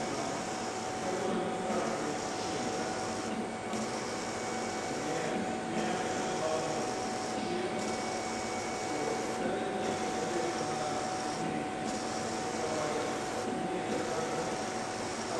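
Drive of the SI4000 sheet-metal inspection table running steadily as its measuring gantry travels across the sheet during a scan, with a steady whine that stops near the end.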